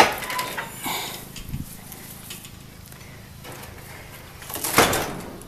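Handling noises of going through a wooden, chicken-wire pen door: a sharp click at the start, scattered knocks and rustles, and a louder scraping rustle near the end.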